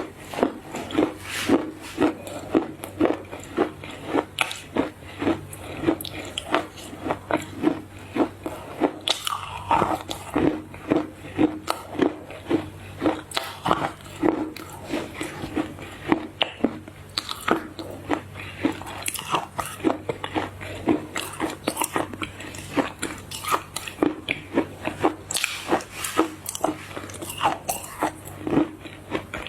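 Close-miked chewing of crunchy chocolate-coated food, a steady rhythm of crisp crunches and bites, about two a second, with wet mouth sounds between them.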